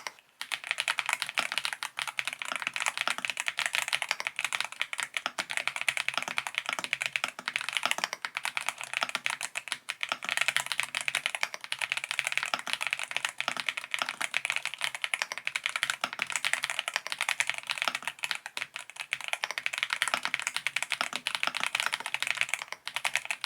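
YUNZII B68 mechanical keyboard with a plastic housing being typed on quickly and continuously: a dense, unbroken stream of keystroke clacks, with a brief pause right at the start and another just before the end.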